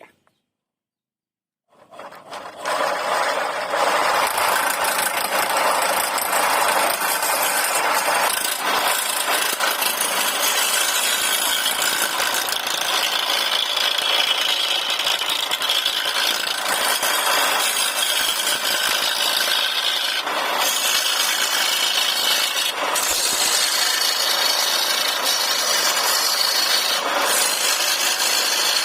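Power tool cutting wood, a steady, continuous cutting noise that starts about two seconds in.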